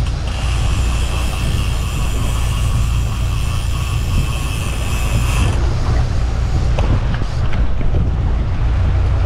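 A boat's motor running under way, a steady low rumble with wind and water hiss over it. A steady high-pitched whine in the mix stops about five and a half seconds in, and a few faint clicks follow.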